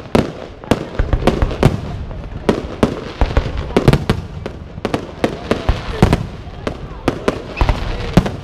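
Professional fireworks display: aerial shells and ground-level effects going off in rapid, irregular sharp bangs, several a second, with no pause.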